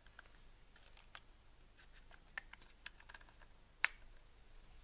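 Scattered small clicks and taps from handling camera gear, one sharper click a little before the end.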